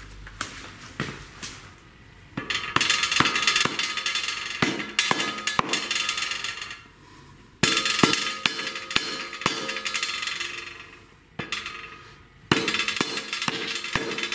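Hammer blows on a rod driving the clutch pilot bearing into the crankshaft's centre bore: three runs of rapid tapping with a metallic ring, the first starting about two seconds in.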